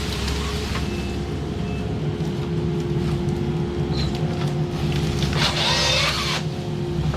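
Diesel engine of heavy clearing equipment running steadily under work, with a loud rushing, hissing noise about five and a half seconds in that lasts about a second.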